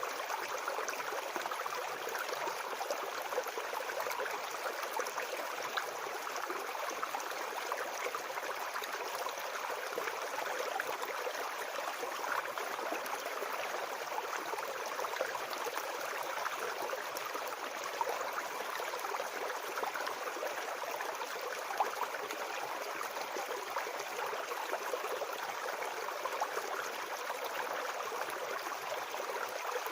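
Forest brook babbling: a steady, even rush of flowing water with a fine, flickering texture.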